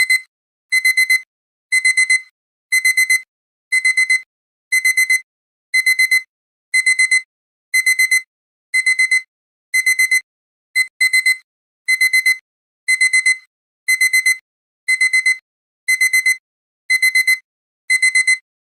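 Digital alarm-clock beeping that signals the countdown has reached zero. The high-pitched beeps come in quick groups of four, one group about every second.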